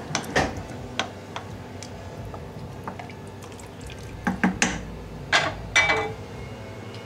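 Wooden spoon stirring thick, wet jambalaya in a stainless steel pot, with sloppy liquid sounds and several sharp knocks of the spoon or utensils against metal. The knocks come about a second in and again in a cluster near the end, the last ringing briefly.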